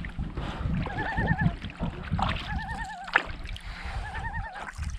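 Hand-blown loon call: someone blows into cupped hands to imitate a common loon's tremolo. It comes as three short warbling hoots, each about half a second long with a rapid wobble in pitch, over wind and water noise.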